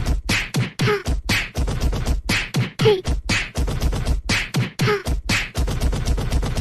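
A rhythmic beatbox-style percussion beat with sharp hits about four times a second and a short pitched blip about every two seconds.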